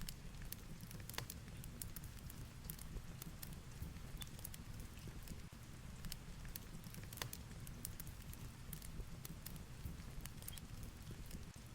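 Fireplace crackling, with irregular sharp pops and snaps, over a steady low rumble of storm ambience: heavy rain and wind.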